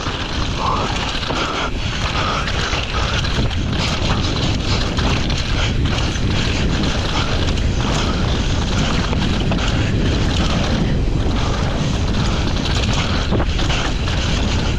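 Wind buffeting the microphone of a downhill mountain bike's onboard camera at race speed, over the noise of tyres on a dry dirt trail. Short knocks and rattles come through from the bike as it hits bumps.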